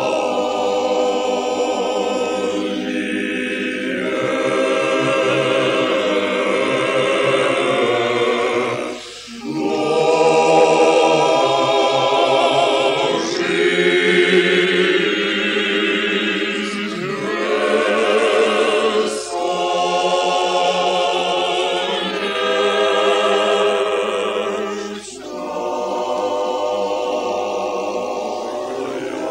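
A choir singing Russian Orthodox liturgical chant unaccompanied, in long sustained chords. The singing breaks briefly between phrases three times.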